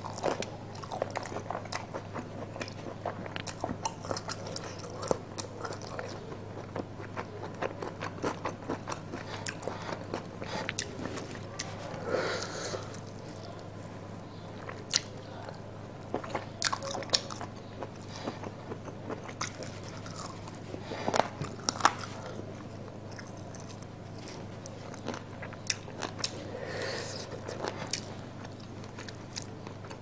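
Close-miked biting and chewing of chicken curry eaten by hand: meat torn from a chicken leg, with scattered sharp clicks and crunches of varying loudness over a steady low hum.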